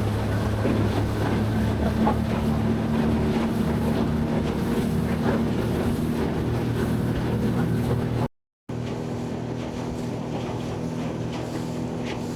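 Honda outboard motor running steadily on an aluminium boat under way, with wind and water noise. The sound drops out for a split second about eight seconds in, then carries on a little quieter.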